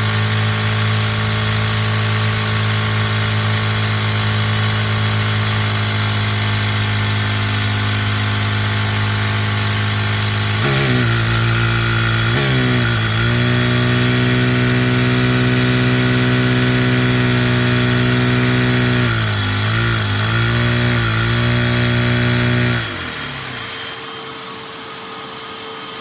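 Lego single-cylinder vacuum engine running fast through a Lego four-speed Lenco transmission, a loud steady mechanical whir. Its pitch steps about eleven and again about twelve and a half seconds in as gears are shifted, and wavers a few seconds before the end as the transmission stops working properly. About twenty-three seconds in the loud running cuts off, leaving a quieter steady hum.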